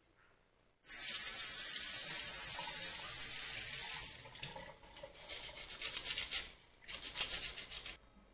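Kitchen tap running into a bowl of potatoes as they are washed and scrubbed by hand. The water comes on suddenly about a second in as a steady stream, turns uneven and splashy from about halfway, and stops shortly before the end.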